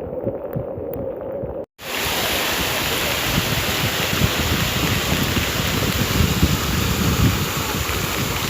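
Floodwater of the swollen Aie River rushing, heard as a steady noise, with wind buffeting the microphone. Less than two seconds in, the sound drops out for a moment and comes back louder and fuller.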